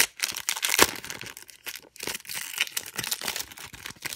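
Foil wrapper of a 2015 Donruss football card hobby pack being torn open and crinkled by hand: a dense run of crackles, loudest about a second in.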